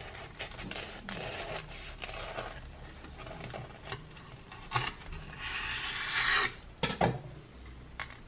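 A kitchen knife sawing through the crisp breadcrumb crust of an air-fried scotch egg, giving a rasping crunch in two spells, with a few sharp knocks about five and seven seconds in.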